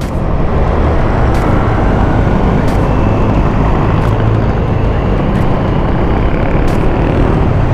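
Motorcycle riding at speed on the road: wind rushing over the microphone over the engine's steady low drone.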